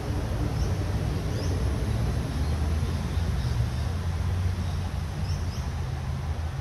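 A steady low rumble, strongest in the middle, with a few faint short high chirps about half a second in, at a second and a half, and twice around five seconds in.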